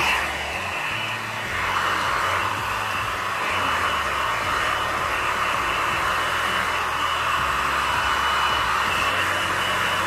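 Babyliss Pro Nano Titanium mini travel hair dryer running steadily, a rushing blast of air with a faint high whine, aimed at the roots of long hair. The rush drops a little in the first second and a half, then holds steady.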